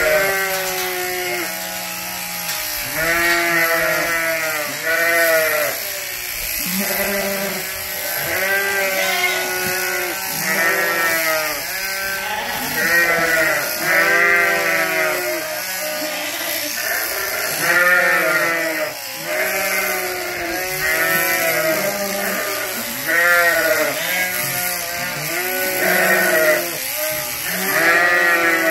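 Sheep bleating over and over, about one call a second, several calls overlapping at different pitches, over the steady buzz of electric sheep-shearing clippers.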